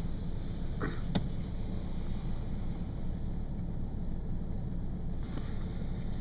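Farm truck driving in snow: a steady low engine and road rumble, with one sharp click a little over a second in.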